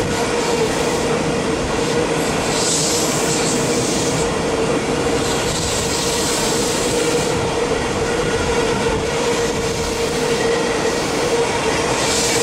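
25T-series passenger coaches of a through train rolling past at line speed without stopping: a continuous rumble of wheels on rail with a steady whining tone. A brighter hiss rises about two and a half seconds in and again near the end.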